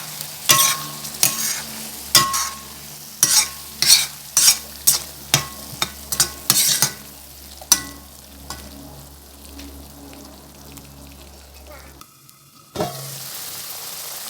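Matar paneer curry being stirred in a pan, the spoon scraping and clinking against the pan about twice a second over a steady sizzle. The stirring stops about eight seconds in, leaving only the simmering sizzle, and near the end a cut brings in a louder, steady sizzle.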